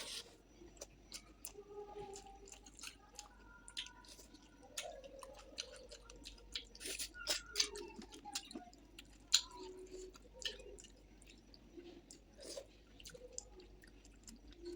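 Close-up chewing and mouth sounds of a person eating rice with fish curry: irregular wet clicks and smacks, with a few louder ones around the middle.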